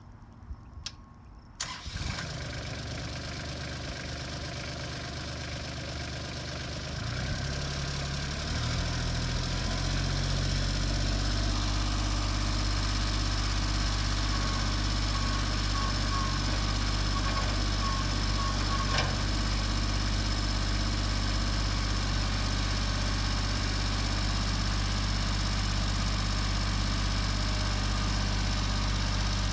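Kubota compact tractor's diesel engine starting about two seconds in after a few light clicks, then running; it is throttled up around seven to nine seconds in and holds a steady higher speed.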